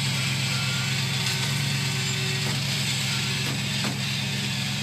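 Tuned V8 engine of a D&G off-road buggy running steadily as the buggy crawls over rough ground, with a few faint clicks and knocks.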